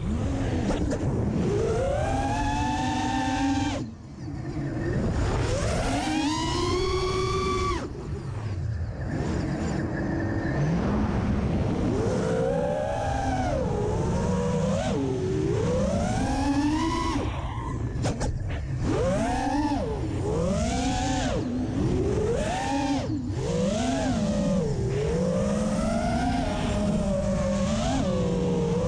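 Brushless motors of a 4S FPV racing quadcopter, heard from its onboard camera, whining in pitch that swoops up and down over and over with the throttle. The sound drops away briefly about four seconds in.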